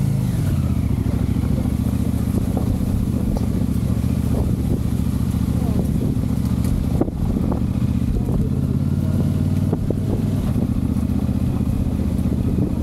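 Motorcycle engine running at a steady pitch while riding off road, with a couple of sharp knocks about halfway through.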